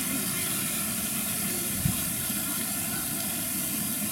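Steady outdoor background noise: an even hiss with a low, uneven rumble, and one short knock a little under two seconds in.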